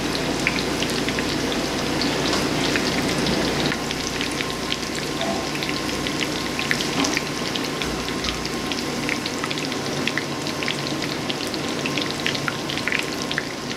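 Breaded lobster bites deep-frying in bubbling hot oil: a steady sizzle with many small crackling pops throughout.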